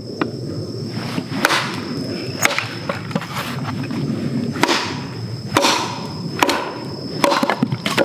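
Hatchet chopping and splitting well-dried hardwood firewood on a stump: about seven sharp wooden knocks at uneven intervals.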